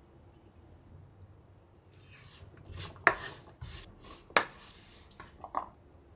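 Wooden spoon stirring flour-dusted diced sweet potato in a stainless steel bowl, mixing in water for a sticky batter coating. Scraping strokes against the bowl start about two seconds in, with two sharp knocks of spoon on metal, then a brief ring from the bowl near the end.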